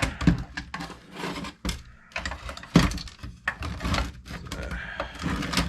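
Plastic case and parts of an old Panasonic alarm clock being handled and pulled apart by hand: irregular knocks, clicks and rubbing.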